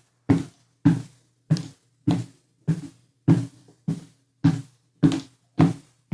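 Footsteps climbing a staircase: about ten evenly paced footfalls, roughly one every 0.6 s. Each is a heavy thud that dies away quickly, over a faint steady low hum.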